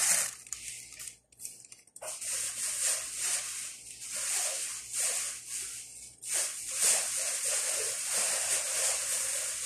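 Water from a kitchen tap running and splashing into a stainless steel sink, cutting out briefly twice.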